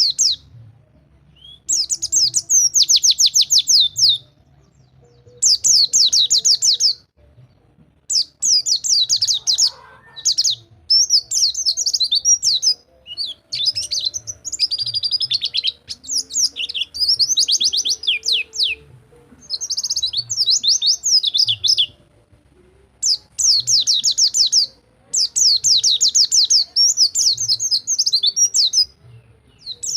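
White-eye (pleci) singing a fast 'rol tembak' song: high, rapid trills in phrases of one to three seconds, broken by short pauses.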